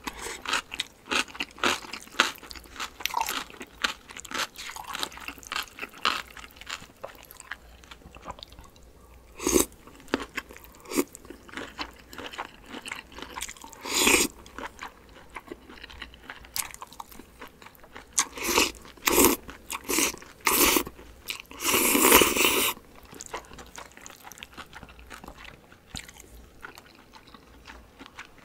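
Close-miked eating: quick, wet chewing and crunching, broken by loud mouthfuls of spicy cold noodles being slurped in, once about halfway through and again, longer, later on.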